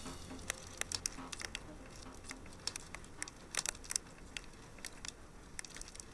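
Crackling fire: irregular sharp pops and snaps, some in quick clusters, over a soft low hum.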